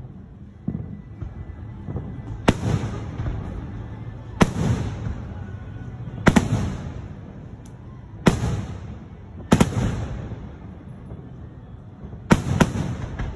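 Aerial firework shells bursting, with about six loud bangs roughly every two seconds, the last one doubled. Each bang trails off in a rumbling echo.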